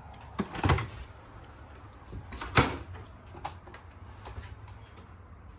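Cabinet doors being opened and shut: a few short knocks and latch clicks, the loudest about two and a half seconds in.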